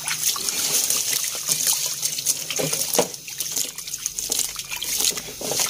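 Wet sand and muddy water being wiped by hand out of a plastic toy dump-truck bed: scattered scratches and small splashes with water trickling.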